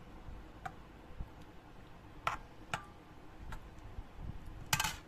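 A metal spoon clinking and scraping against a bowl while stirring thick henna paste: a few sharp, separate clicks, then a quick run of clicks near the end.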